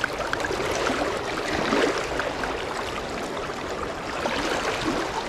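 Shallow river water running steadily over a riffle: an even, unbroken hiss.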